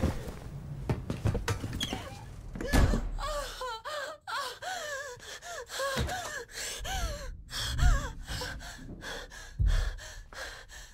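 A woman gasping and sobbing in distress, with short, high, rising-and-falling wailing cries from about three seconds in. A few heavy thuds are also heard.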